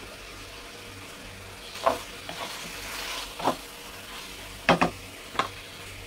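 Chicken pieces sizzling in a deep pan on a gas burner while a spatula stirs them. The spatula knocks and scrapes against the pan about six times, loudest in a quick pair near the end.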